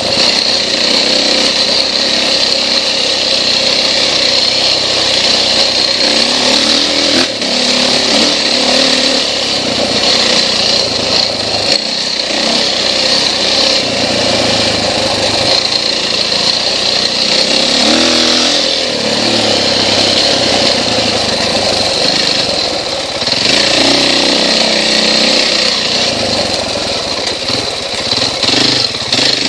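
KTM XC-W dirt bike engine running under load, heard from on the bike. The revs rise and fall repeatedly as the rider throttles and shifts along the trail.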